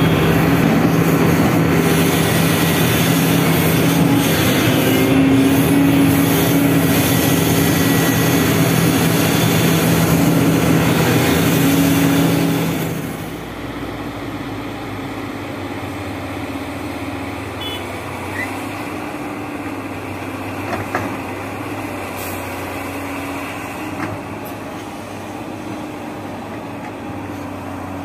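SANY hydraulic excavator's diesel engine and hydraulics working under load, loud and close as heard from the cab, with a steady hum and hiss. About 13 seconds in the sound drops to a quieter, steady engine drone heard from outside the machine, with a few faint knocks.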